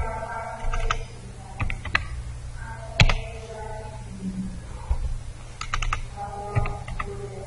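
Computer keyboard typing: short clusters of key clicks with pauses between them.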